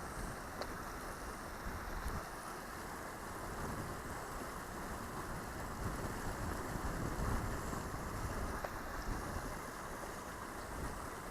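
Strong wind buffeting the microphone in uneven gusts over the steady rush of a river.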